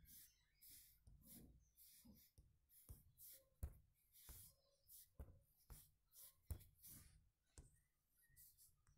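Near silence with faint taps, about one or two a second, and a light hiss.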